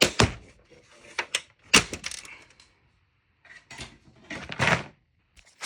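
Plastic clips in an Xbox 360 casing releasing as a pick is pushed through the holes and the panel is pried up. There are several sharp plastic clicks and snaps in the first two seconds, then two short scrapes of plastic rubbing on plastic near the end.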